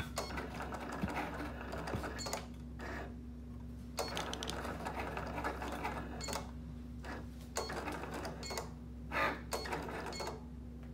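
Cricut Explore Air 2 electronic cutting machine running a test cut on cardstock. Its motors drive the blade carriage and the mat in runs of half a second to two seconds, with brief pauses between them.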